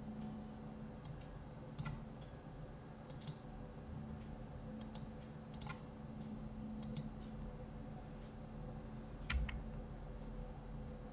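Scattered clicks of a computer mouse and keyboard, several in quick pairs, with one louder knock near the end, over a faint steady hum.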